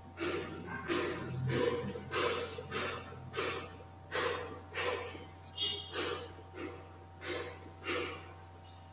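Marker strokes scratching on a whiteboard as words are written: about a dozen short strokes at roughly one and a half a second, with one brief squeak a little past halfway.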